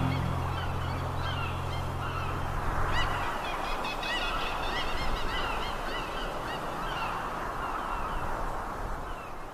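A flock of birds calling, many short overlapping calls at once, goose-like honks among them. Low sustained notes, the tail of a piece of music, stop about three seconds in.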